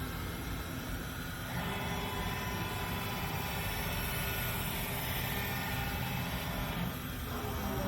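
Haas GM-2-5AX gantry CNC router running: a steady machine drone with faint motor whines that change character about a second and a half in and again near the end.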